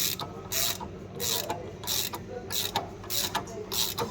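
Hand ratchet wrench being worked back and forth, a short rasping ratchet burst roughly every 0.6 seconds, tightening a fastener during suspension and steering reassembly.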